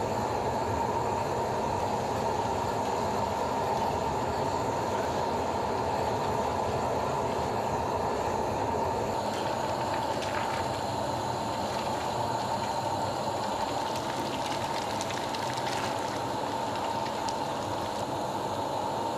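Steady roar of foundry machinery during a bell casting, with a steady high-pitched hum through it and a few faint clicks and knocks about halfway through and later.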